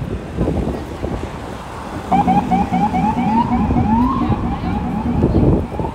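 Emergency vehicle siren in yelp mode: a fast run of short rising whoops, about five a second, starting about two seconds in and ending in one longer rise, over city traffic noise.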